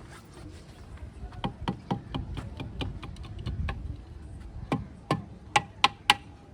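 Irregular sharp metallic knocks and clinks, growing louder in the last two seconds, with a few strikes leaving a short ring, over a low machine rumble.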